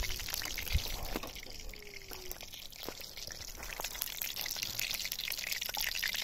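Hot oil sizzling in a kadhai over a wood fire, a dense patter of fine crackles over a steady hiss.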